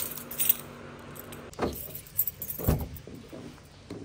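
A bunch of keys jingling as they are picked up from a basket, with more jingling around two seconds in. Two dull thumps come about a second and a half and two and a half seconds in.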